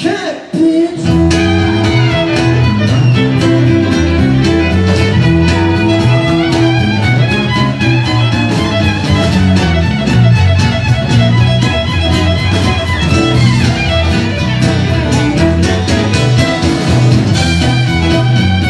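Live rock band playing an instrumental break, with a fiddle lead over acoustic guitar, electric bass and drums. The band drops out for a moment at the start and comes back in about a second in.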